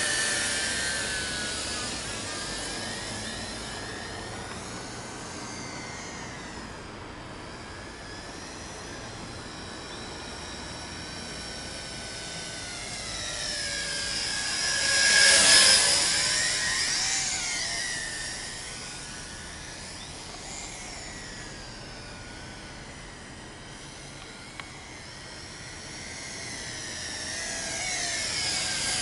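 Tarantula X6 hexacopter's rotors whining as it flies about, the pitch sliding up and down. It grows loudest as it passes close about halfway through, fades away, and comes back louder near the end.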